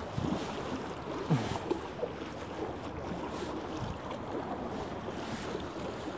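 Wind buffeting the microphone over choppy sea water lapping against a rock breakwater, with one brief louder knock just over a second in.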